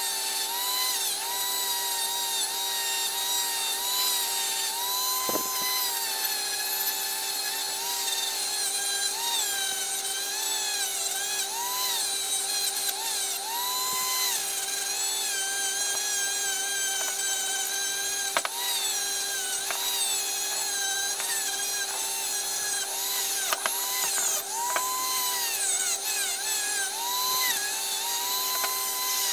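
Small electric rotary tool running with a wire brush wheel scouring a cast aluminium planer part. The motor's whine dips in pitch again and again as the wheel is pressed onto the metal, over a scratchy hiss. There are a few sharp ticks in the second half.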